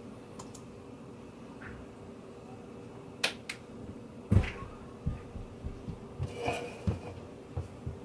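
Handling of an aluminium soda can at a desk, over a faint steady hum. Two sharp clicks come a little after three seconds and a loud knock about four and a half seconds in, then a run of softer knocks and taps as the can is lifted.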